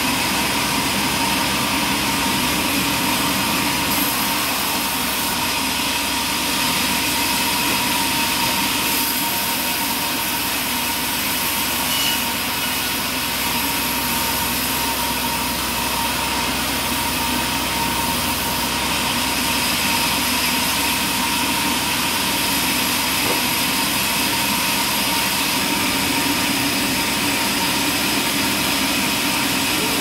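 Large vertical band sawmill running steadily: a constant mechanical hum and whine from the band blade and its drive over a broad noise.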